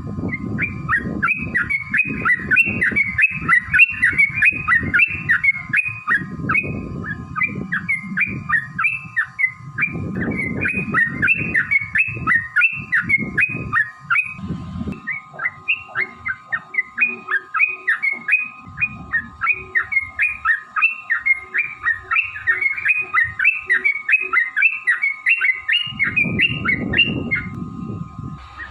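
Yellow-vented bulbul (trucukan) singing a long, unbroken run of quick chattering notes, about three a second. This is the 'ropel panjang' song used as a lure to set other bulbuls calling.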